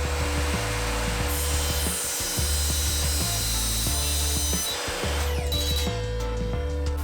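Evolution R255SMS sliding mitre saw with its multi-blade cutting through metal stock: a dense, high-pitched screech of the blade in the cut that stops about five seconds in. Background music with a steady bass beat plays throughout.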